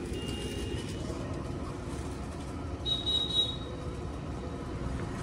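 Steady outdoor background of vehicle rumble. A faint high-pitched tone sounds briefly near the start, and a brighter high tone about three seconds in.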